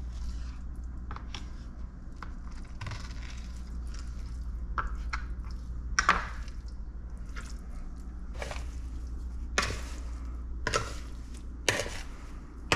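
A kitchen knife cuts fish fillets into chunks on a plastic cutting board, making scattered knocks as the blade meets the board, over a low steady hum. Near the end, the pieces are tossed in dry breading in a glass bowl.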